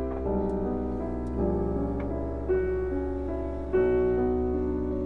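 Background piano music: chords that change about every second, with new notes struck about 1.4, 2.5 and 3.8 seconds in.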